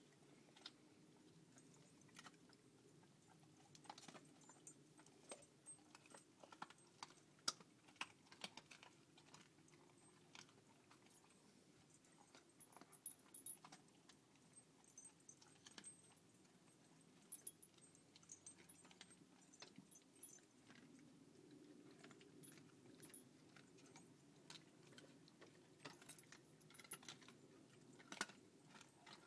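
Airedale terrier chewing raw beef rib bones: faint, irregular crunches and clicks.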